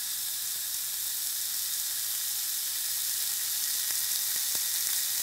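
Beef cuvette sizzling on a hot grill grate: a steady fat-and-juice hiss, with a few faint crackles about four seconds in.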